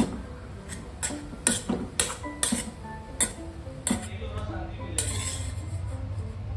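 A spoon clinking and scraping against a cooking pan as mashed-potato stuffing is stirred, with irregular knocks about twice a second. Background music plays underneath.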